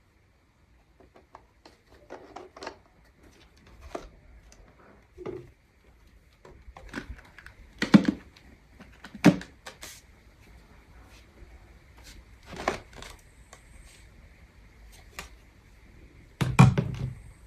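Scattered plastic clicks and knocks from handling a cordless upright vacuum cleaner and its parts, with a few louder thuds, the loudest near the end.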